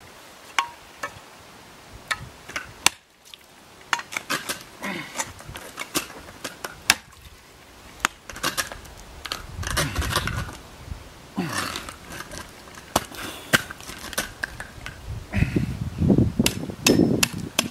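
Ice axe picks striking a sheet of ice, a series of sharp irregular strikes, with scraping on the ice between them.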